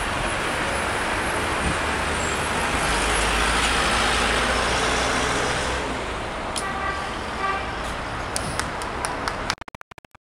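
Steady traffic noise from a busy city road, swelling around the middle as vehicles pass, with a few short faint horn toots and some sharp clicks in the second half. The sound cuts out briefly near the end.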